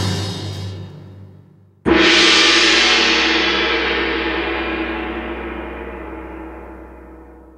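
Intro sting audio: the tail of a music theme fades out, then about two seconds in a single gong-like cinematic hit strikes and rings, fading slowly over the next five seconds.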